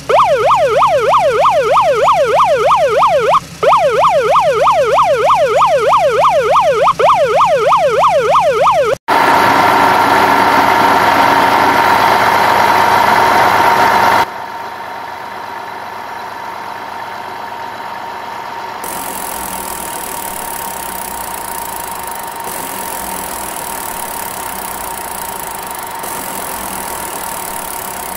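Police siren with a fast, regular rising-and-falling wail for about the first nine seconds, then a loud engine sound that settles to a steadier, quieter machine hum from about fourteen seconds in.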